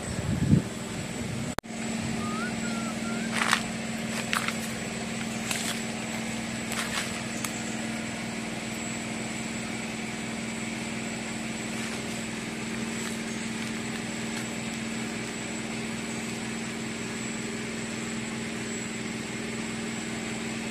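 A small engine running with a steady drone. A few sharp clicks come in the first several seconds.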